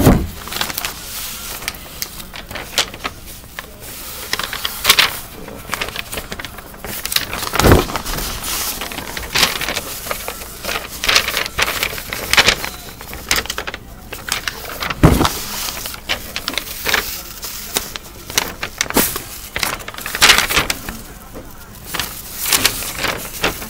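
Sheets of drawing paper rustling and crinkling as they are handled right up against the microphone, with two dull bumps about a third and two thirds of the way through.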